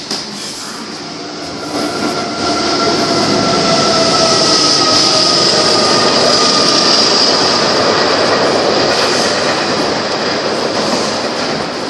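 Loud rushing noise of a passing vehicle that swells about two seconds in and eases near the end, with faint whining tones that drift slightly downward.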